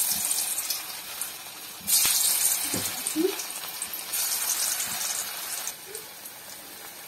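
Masala-battered cauliflower florets (gobi 65) deep-frying in hot oil in a steel kadai: a steady sizzle that surges about two seconds in as more pieces are dropped in, then eases off near the end.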